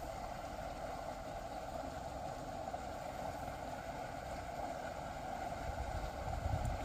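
Steady outdoor background noise with an uneven low rumble of wind on the microphone, which swells briefly near the end.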